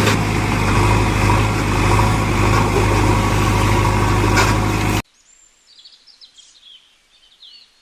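A steady engine or motor hum that cuts off abruptly about five seconds in, followed by a few faint bird chirps.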